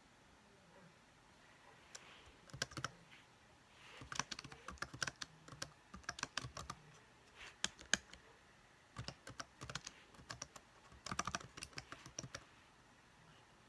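Typing on a computer keyboard: several short bursts of quick keystrokes with pauses between them.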